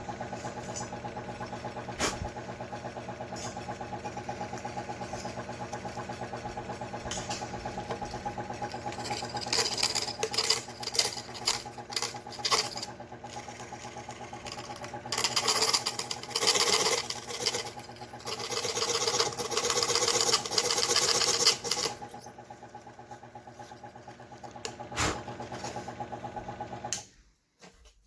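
Scroll saw running with a steady reciprocating hum, its junior hacksaw blade cutting protoboard in louder, higher-pitched spells through the middle. The saw cuts off about a second before the end.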